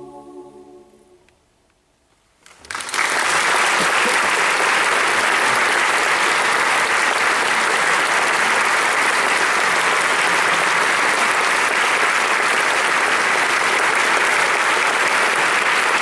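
A women's choir's final held chord dies away in the first second, then after a short silence an audience starts applauding about two and a half seconds in, loud and steady.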